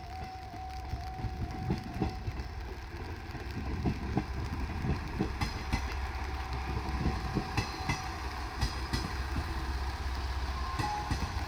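Diesel train rolling past over a level crossing, its wheels clicking and knocking over the rail joints above a low engine rumble. A level-crossing warning bell, ringing in steady pulses, stops about two seconds in.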